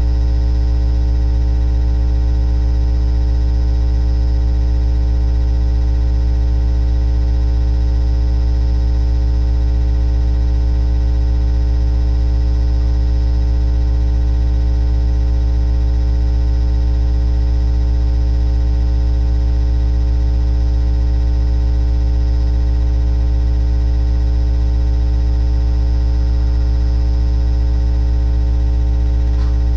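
Loud, steady electrical hum with many overtones, unchanging throughout.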